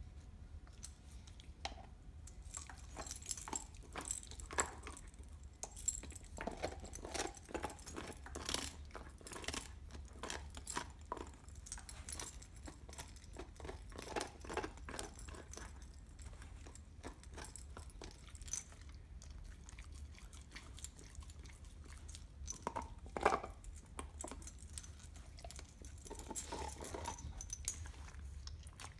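Dog gnawing a raw marrow bone: irregular wet chewing and crunching with sharp clicks of teeth on bone, busiest in the first half and sparser later, with one louder crack a little past the middle.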